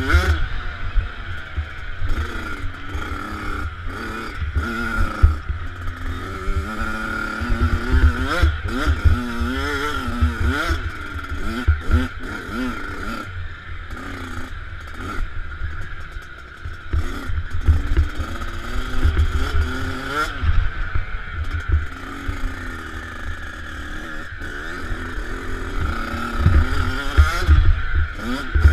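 Dirt bike engine revving up and down as the rider works the throttle and gears, its pitch rising and falling again and again, with heavy wind buffeting on the helmet camera's microphone.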